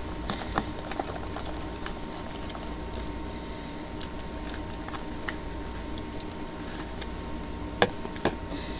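Plastic tub of slime being handled on a table: soft scattered taps and rubbing, with two sharp clicks near the end, over a steady faint hum.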